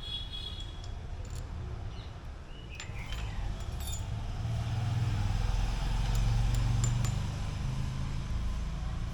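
Light metallic clinks and clicks of brake pads and small caliper parts being handled, over a low rumble that swells about halfway through and then eases.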